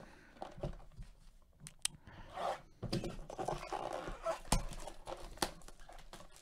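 Clear plastic shrink wrap crinkling and tearing as gloved hands work it off a cardboard box of baseball cards, with the box rustling. Two sharp clicks come about four and a half seconds and five and a half seconds in.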